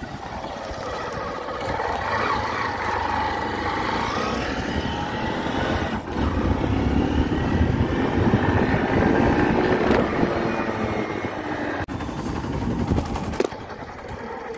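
Motorcycle engine running while riding, its pitch rising and falling with speed, with wind rumbling on the microphone; it eases off near the end.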